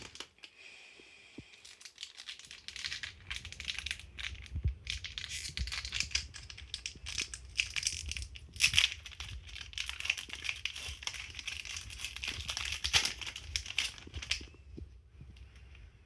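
Foil wrapper of a Pokémon trading-card booster pack crinkling and crackling as it is handled and torn open. It runs from about two seconds in and stops about a second and a half before the end.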